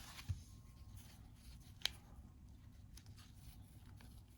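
Faint scraping and a few small clicks as a prying tool is worked around the edges of an iPhone 14 Pro Max screen, with one sharper click about two seconds in.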